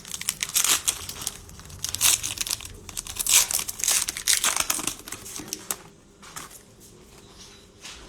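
Cellophane wrapper of a trading-card cello pack crinkling as it is torn open and handled, in dense irregular crackles that die down to faint rustles about six seconds in.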